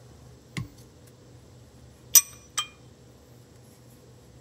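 Steel differential parts from a Can-Am Smart-Lock front diff, the carrier and ring gear, being handled and fitted together: a dull knock about half a second in, then two sharp ringing metal clinks about two seconds in, less than half a second apart.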